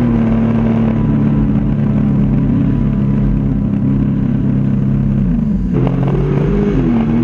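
Jet ski engine, heard from on board, running at a steady high speed. About five seconds in its pitch drops as the throttle eases off, then it dips and rises again near the end.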